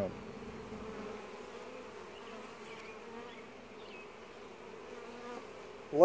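Honey bees from a queenless laying-worker colony, shaken off their frames, flying about and buzzing in a steady hum.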